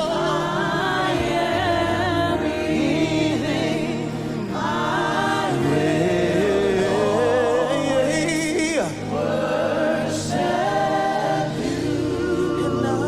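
Gospel worship music: a choir singing long, wavering sustained notes over steady accompaniment, without clear words.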